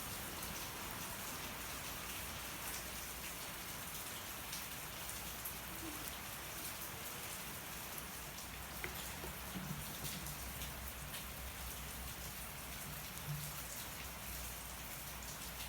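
Steady rain falling, with a few faint crackles and pops from a burning wood fire.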